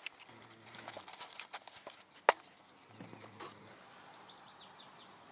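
A man snoring in his sleep: two long, low snores about three seconds apart. A sharp click a little after two seconds in is the loudest sound, and faint bird chirps come near the end.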